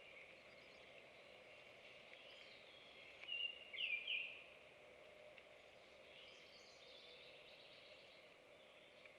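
Faint chorus of songbirds calling and singing in the woods, with one nearby bird giving a few louder short whistled notes about three seconds in.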